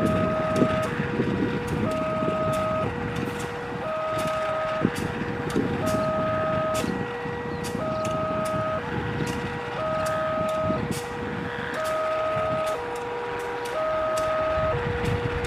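An electronic two-tone warning alarm alternating between a higher and a lower tone, each held about a second, over the low running of a CC 201 diesel-electric locomotive's engine.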